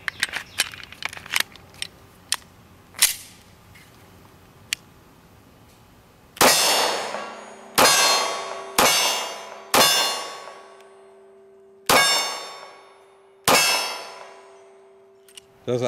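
A few light clicks as the magazine is seated in a Glock 43 9mm subcompact pistol, then six shots fired with 124-grain +P PDX1 hollow points, starting about six seconds in and spaced one to two seconds apart. Each shot is followed by the ringing clang of a steel target being hit.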